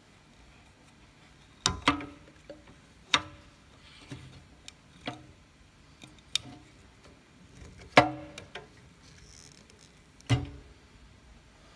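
Irregular metallic knocks and clunks, about ten of them, some ringing briefly, from the open sheet-metal pulley cover of an old Clarke drill press being handled. The loudest comes about eight seconds in.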